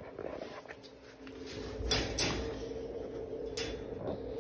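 Metal wire dog crate rattling and clacking as the boxer inside gets up: two sharp clacks close together about two seconds in and another near the end, over a steady low hum.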